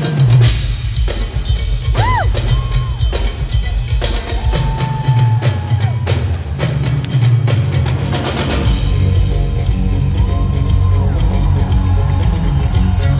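Live rock drum break: a drum kit with bass drum and snare played together with a percussionist's drums in a steady groove, cymbals coming up brighter in the second half.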